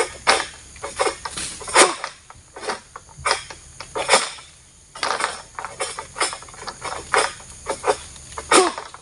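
Cap 111 long-pole oil palm sickle (egrek) hacking and rasping at the base of a frond and a short-stalked fruit bunch. It comes in sharp strokes about two a second, with a short pause near the middle. The bunch sits wedged tight against the frond and will not drop.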